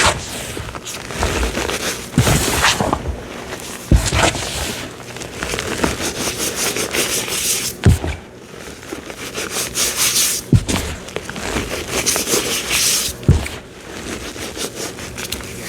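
Cornstarch reforms being squeezed and crushed by hand: a run of squeaky, crunching rubs with a sharp crack every two to three seconds.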